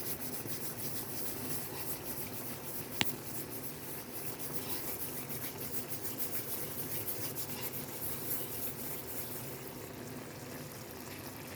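Chicken curry cooking in a pan, with a steady sizzle and fine crackling, and one sharp click about three seconds in.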